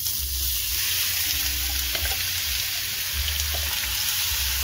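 Chopped onion sizzling in hot cooking oil in a frying pan, the sizzle starting suddenly as the onion goes in and holding steady while it is stirred with a wooden spoon.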